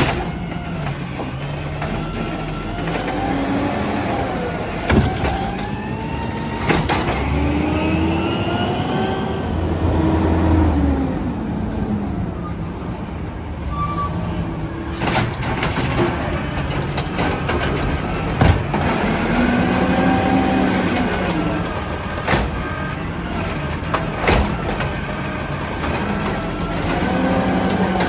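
Peterbilt 320 automated side-loader garbage truck with a natural-gas engine, revving up and down repeatedly as it powers the hydraulic arm to lift, dump and return the carts, and as the truck pulls ahead. Several sharp clunks of the arm and the cans come through the engine sound.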